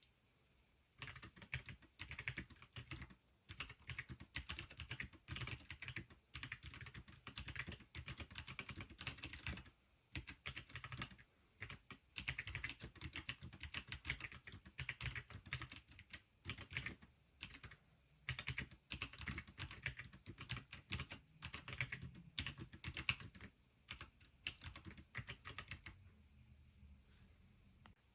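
Continuous typing on a Pinky4 split ergonomic keyboard with hot-swap mechanical switches: rapid runs of key clicks broken by short pauses. It starts about a second in and stops near the end.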